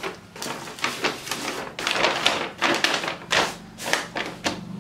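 Kraft paper shopping bag rustling and crinkling as it is handled, turned over and smoothed flat by hand, in a run of quick crackles.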